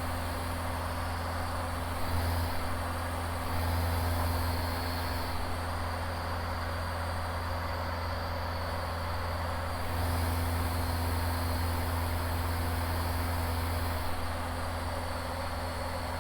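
Van's RV-7 aircraft engine running steadily at low power on the ground, heard inside the cockpit as a low drone with hiss. Its level rises briefly a few times.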